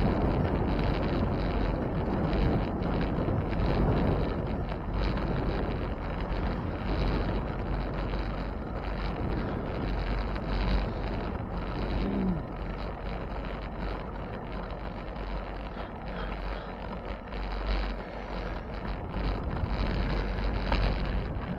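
Wind rushing over the microphone during a bicycle ride, a steady noise that swells and fades, with a short falling tone about halfway through.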